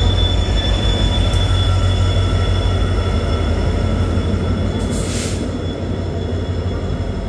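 A WDP4D diesel locomotive's EMD two-stroke engine rumbles low as the train rolls slowly past into the station. A faint high wheel or brake squeal rings over the engine, and a short hiss comes about five seconds in. The rumble slowly fades as the coaches follow the locomotive past.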